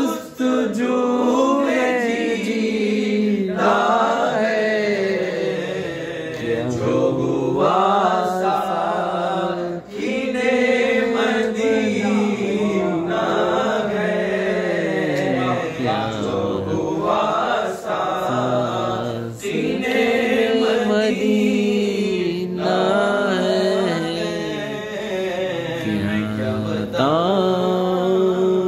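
Male voices singing an Urdu naat in long, drawn-out notes that waver and bend in pitch, with no instruments.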